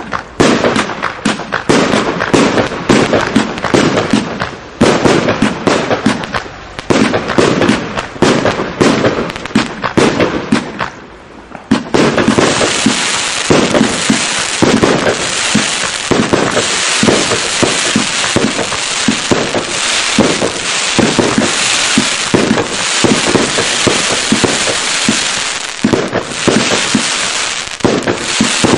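Jasper Sacramento consumer fireworks cake firing: a rapid volley of shots and bursting stars, then about twelve seconds in a sudden switch to a dense, continuous crackle with the shots still thumping beneath it.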